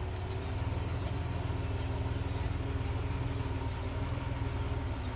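Heavy diesel engine of earthmoving equipment running steadily, with an even low throb.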